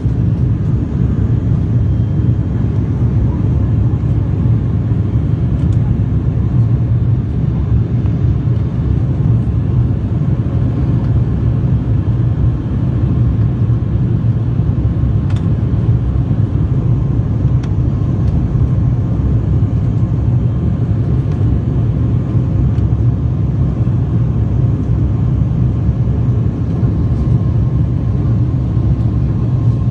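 Steady, loud low drone of the ATR 72-500's twin turboprop engines, holding even with no rise or fall, with a few faint clicks.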